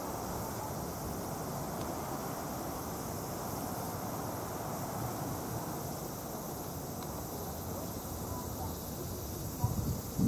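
Steady high-pitched outdoor insect chorus over a constant low rushing noise, with a few low bumps near the end.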